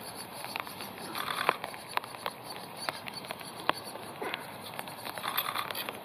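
Banded woodpecker nestlings giving short bursts of rapid, buzzy begging calls from the nest cavity, once about a second in and again near the end. Scattered sharp ticks run through it, the loudest about a second and a half in.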